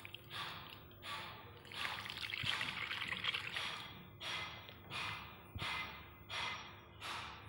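Thin rice-and-coconut batter being poured into a non-stick pan: a steady pour for a couple of seconds, then a string of short splashes about every half second as the last of it is tipped out.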